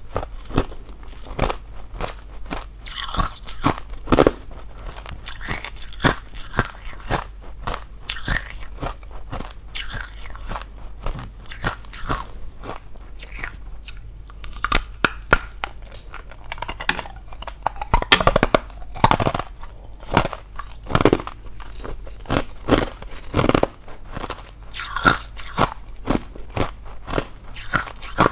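A person biting and chewing hollow ice. Sharp, irregular crunches and cracks come one after another, several in some seconds.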